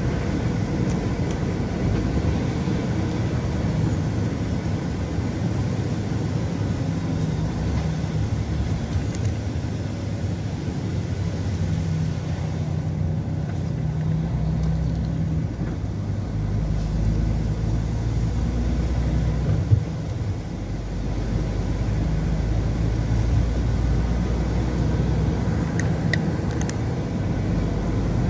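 Vehicle interior noise while driving on a wet motorway: a steady low engine and road hum with tyre noise. A single short knock comes about twenty seconds in.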